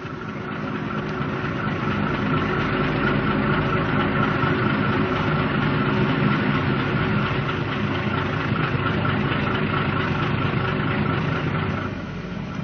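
An engine running steadily with a faint high whine, starting suddenly, growing louder over the first couple of seconds and dropping back a little near the end.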